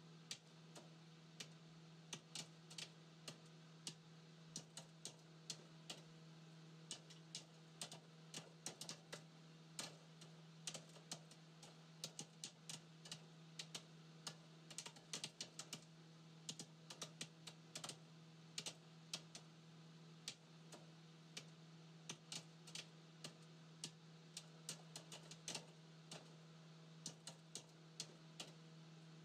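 Quick, light clicks in uneven runs of several a second, like tapping or typing, over a steady low hum.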